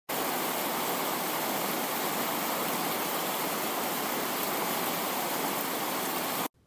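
Steady static-like rushing hiss at an even level, starting abruptly and cutting off suddenly near the end.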